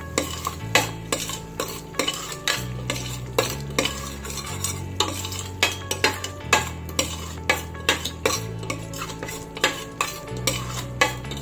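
A metal ladle stirring and scraping a thick masala paste around a stainless steel pot, with frequent irregular clinks as it knocks against the pot's sides and bottom.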